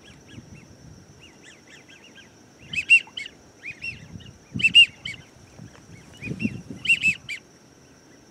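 Waterfowl calling over the marsh: short high rising-and-falling calls in clusters of two or three, loudest about three seconds in, again just before five seconds and near seven seconds. A faint steady high insect trill runs underneath.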